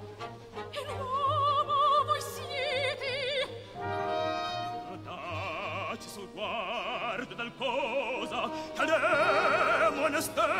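Operatic singing with wide vibrato over orchestral accompaniment, with several voices overlapping from about halfway through.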